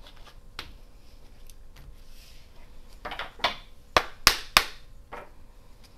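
A deck of tarot cards being shuffled and handled by hand: scattered soft clicks and rustles, then three sharp snaps of the cards about four seconds in.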